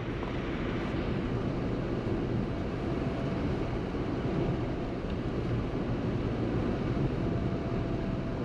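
Steady road and engine noise of a Maruti Suzuki Ciaz sedan driving along, heard from inside the car.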